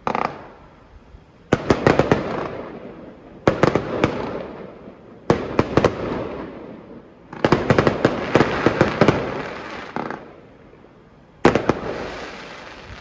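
Aerial fireworks going off in about six volleys, each a quick cluster of sharp bangs and crackling that fades away over a second or two before the next.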